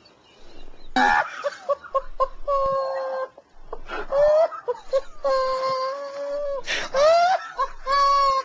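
A person in a fit of laughter: long, high-pitched wailing laughs held for a second or more, broken by sharp gasping breaths.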